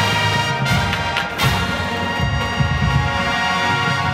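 Marching band playing live, the brass section sounding loud held chords over a low, rhythmic bottom end.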